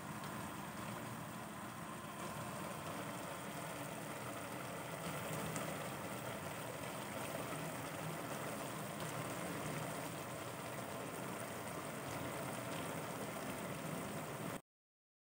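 Papaya and chicken in coconut milk simmering in an aluminium pot over a gas burner: a steady bubbling with the burner's hiss, which cuts off abruptly near the end.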